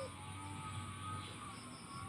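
The tail of a spotted dove's coo right at the start, then a pause in its calling. Under it runs faint steady background music, and a quick run of faint high notes comes near the end.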